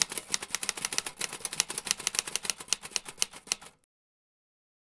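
Typing sound effect: a fast run of sharp key clicks, about ten a second, that stops abruptly after nearly four seconds.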